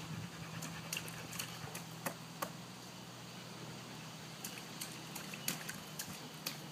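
Faint taps and light splashes from a toddler's hand and a plastic scoop at a plastic water table, about a dozen small clicks scattered irregularly. Under them runs a steady low machine hum.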